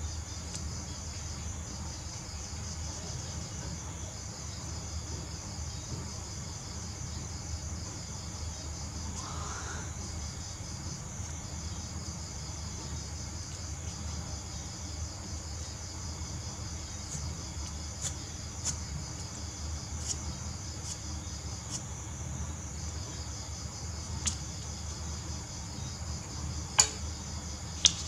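Insects trilling steadily in the background, a high pulsing chirp that stops briefly now and then, over a low hum. A few sharp clicks come in the second half, the two loudest about a second apart near the end.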